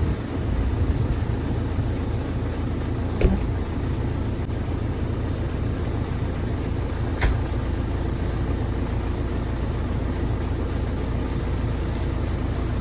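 A tractor engine idling steadily, with two sharp knocks about four seconds apart.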